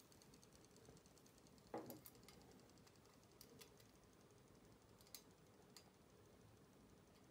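Mostly near silence, with a soft knock about two seconds in and a few faint clicks and ticks after it as the thin aluminium parts of a weather vane kit are handled.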